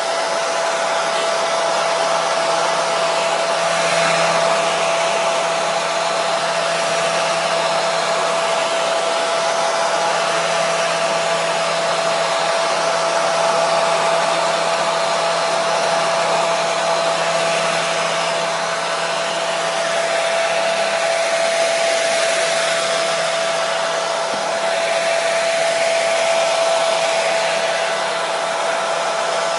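Hair dryer running steadily: an even rush of blown air with a steady whine from its motor and fan.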